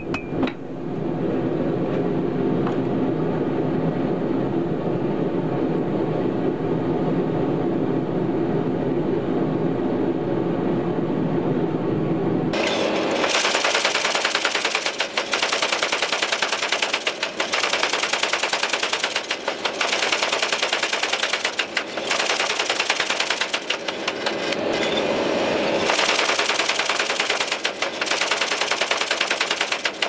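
A power hammer striking a glowing twisted steel-cable billet, forge-welding it into damascus, in rapid runs of blows broken by short pauses. For the first dozen seconds a steady low noise is heard instead.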